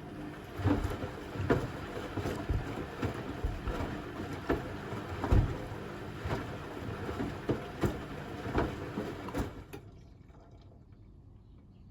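Zanussi Essential ZWF12070W washing machine drum tumbling its load of watermelons in the wash, with irregular heavy thuds, roughly one or two a second, over a steady churning noise. The drum stops suddenly near the end.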